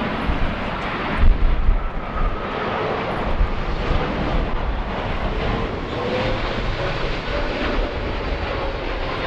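Jet airliner engines running with a steady rush and a faint held whine, mixed with strong gusty wind buffeting the microphone.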